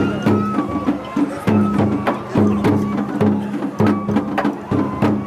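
Japanese festival ohayashi music: a bamboo flute playing held notes over a steady, repeating pattern of drum strikes.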